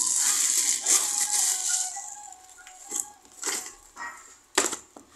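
Crinkling and rustling of plastic gift packaging being handled, steady and loudest for the first two seconds, then a few sharp crackles.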